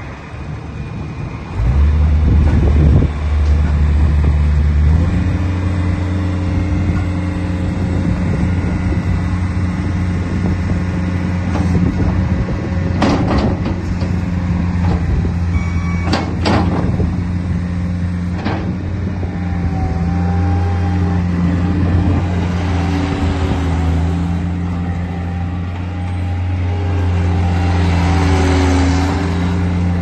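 Gehl R150 skid steer loader's diesel engine running and revving up about one and a half seconds in, then again a few seconds later, holding steady under load as the machine drives and works its loader. A few sharp knocks come from the loader near the middle as the bucket is raised.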